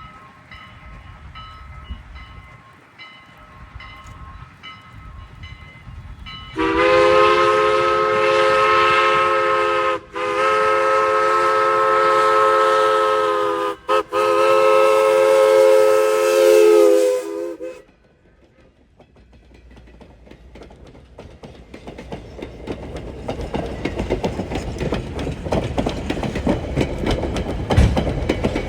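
Steam locomotive No. 89's chime whistle blowing one long chord of several tones, broken twice by very short gaps, for about eleven seconds. After it stops, the train's rumble and wheel clatter grow steadily louder as it approaches.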